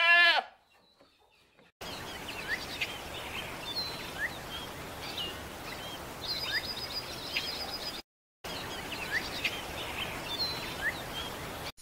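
Small birds chirping, with many short sharp calls and a rapid trill a little past the middle, over a steady outdoor hiss. A falling bleat-like call ends right at the start, followed by a moment of quiet. The sound drops out briefly about two-thirds of the way through.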